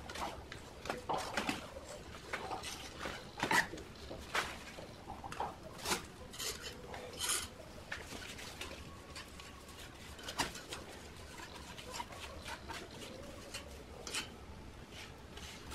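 Hands scraping and rubbing the rough edge of a freshly cast cement plant pot, with small chips and grit clicking and knocking. The scrapes and clicks come irregularly, with a few louder scraping strokes.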